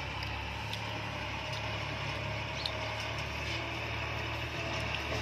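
Farm tractor's engine running steadily at a low hum while it works the dirt, with a few faint clicks over it.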